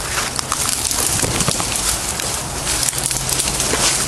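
Rushes, leaves and twigs rustling and crackling as someone pushes through dense waterside undergrowth, the foliage brushing close against the microphone. A continuous dense crackle with many small snaps throughout.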